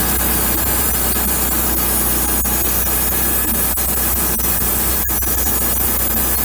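Wood-Mizer LX150 band sawmill running steadily, its band blade cutting through a large pine block.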